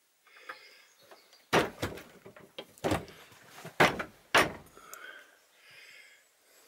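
Wooden door of an outside toilet shed being shut and its metal latch worked: about five loud knocks and bangs over three seconds.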